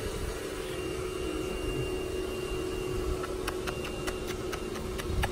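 A steady mechanical hum over a low rumble. From about three seconds in come a run of sharp clicks and taps right at the microphone as a malamute's muzzle nudges the phone.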